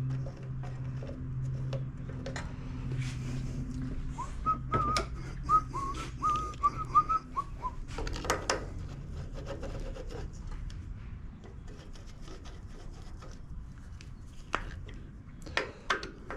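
Someone whistling a short tune of about a dozen quick notes, over light clicks and knocks of metal parts and tools being handled while a carburetor is refitted to a small engine. A few sharp cracks near the end: knuckles popping.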